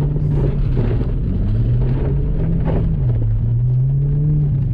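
Car engine heard from inside the cabin while driving on a gravel road, its note falling and rising a few times, with steady tyre and road noise underneath.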